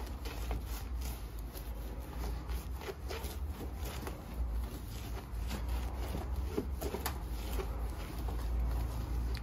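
A cloth wet with soapy water is wiped back and forth over a painted car bumper, making irregular rustling, scuffing strokes over a low, steady rumble.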